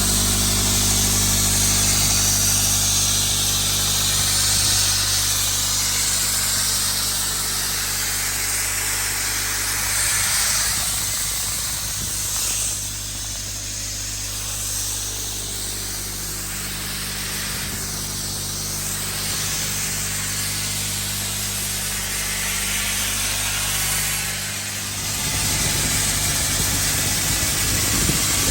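Abrasive blast nozzle hissing against a boat hull over the steady hum of the blasting rig's compressor engine, with the air supply down at about 60 PSI. The hiss swells and eases, and the engine note shifts about twenty-five seconds in.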